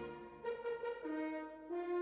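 Background music: a melody of held notes that changes pitch every half second or so.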